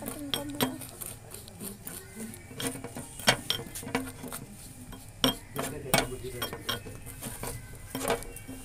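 Plastic toothbrush stirring and scraping hair-bleach paste in a cut-glass bowl, with irregular clicks and taps of the brush against the glass.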